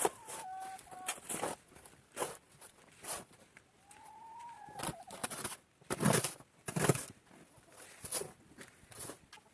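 Two drawn-out animal calls, a short one at the start and a longer one of about a second that rises and falls, heard among irregular knocks, rustling and footsteps; the two loudest thumps come about six and seven seconds in.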